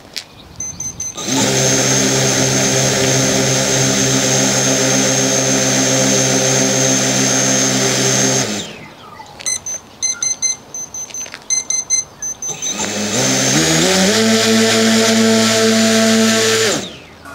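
Hobbywing brushless drone motor spinning a red propeller on the bench: a steady high whine with rushing air for about seven seconds, then it stops. It spins up again with a rising pitch, holds steady, and cuts off near the end.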